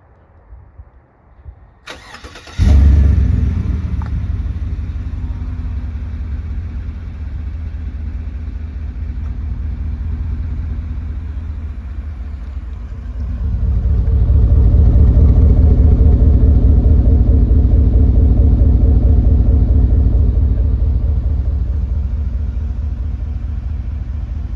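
A Chevrolet Silverado's 5.3-litre V8 is cranked and catches about two and a half seconds in with a loud flare, then settles to a steady idle through the exhaust. About thirteen seconds in it gets louder and holds there, easing slowly back down near the end.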